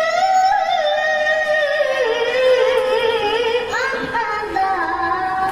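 A boy's high voice reciting the Quran in the melodic tilawah style through a microphone, holding long notes with wavering ornaments. The line drops lower about two seconds in, then turns upward with quick rising glides near the end.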